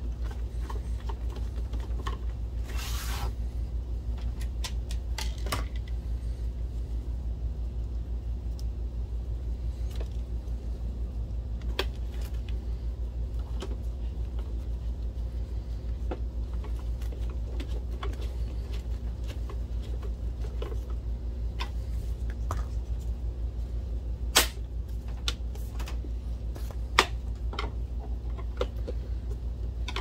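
Screwdriver work on a DLP projector's plastic bottom case: scattered small clicks and taps of the tool and case, a brief rustle about three seconds in, and two sharper knocks near the end, over a steady low hum.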